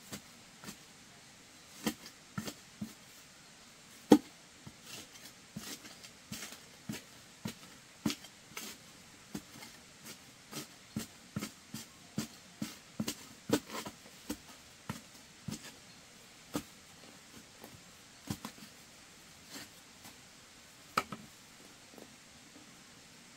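Scattered knocks and taps at an irregular pace, like hands working with objects or tools, the sharpest knock about four seconds in.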